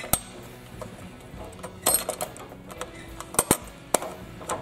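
Irregular small clicks and taps of a hand tool and screws against a plastic engine bracket as screws are started by hand and left loose.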